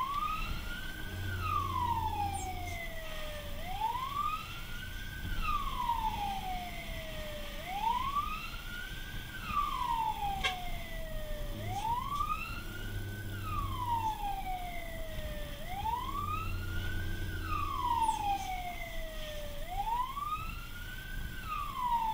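Fire truck's wail siren, heard from inside the truck's cab: each cycle sweeps up quickly and then falls slowly, repeating about every four seconds.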